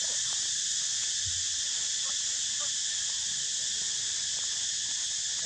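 Steady insect chorus, a high even buzz that does not let up, with a few faint short squeaks over it now and then.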